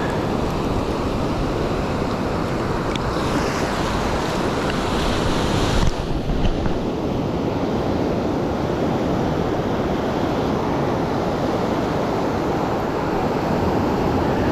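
Ocean surf breaking and washing up the beach, with wind buffeting the microphone. A brief thump about six seconds in.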